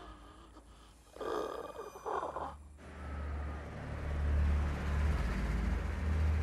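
A vintage car's engine running with a steady low rumble as the car pulls up, coming in about two and a half seconds in. Before it, two short voice-like cries from the puppet.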